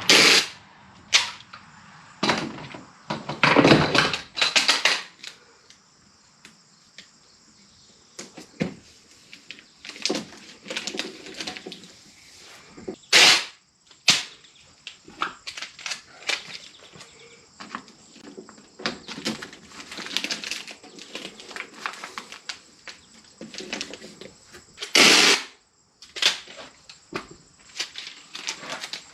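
Irregular clicks, taps and rattles of parts and hand tools being handled, broken by several louder short bursts of noise.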